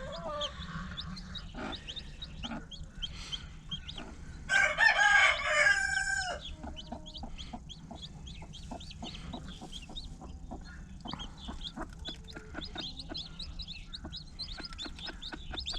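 Newly hatched chicks peeping in a steady stream of short, high chirps. A rooster crows once, about four and a half seconds in, for under two seconds, its call dropping in pitch at the end.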